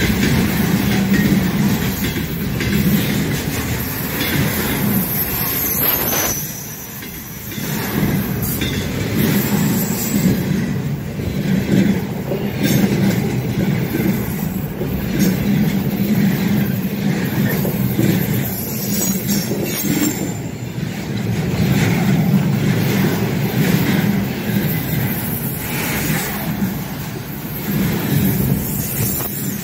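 Container freight train rolling past close by: loaded container flat wagons rumbling, their wheels clattering over the rails. The noise briefly drops about seven seconds in.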